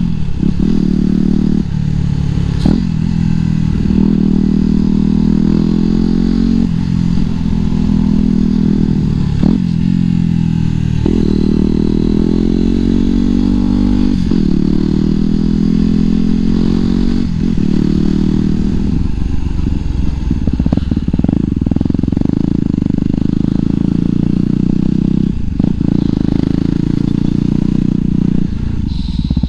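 Yamaha WR250X's 250 cc single-cylinder four-stroke engine breathing through an FMF Mega Bomb header and FMF Q4 silencer while riding. It pulls up through the revs again and again, its pitch rising and dropping back at each gear change, then settles into steadier cruising in the second half. It is picked up by the rider's voice microphone.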